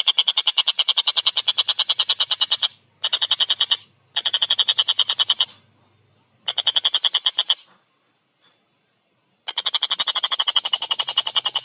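Tengkek buto, a kingfisher, calling a fast rattling trill of rapid repeated notes, about ten a second. It comes in several bursts broken by short pauses, then stops for about two seconds before starting again near the end.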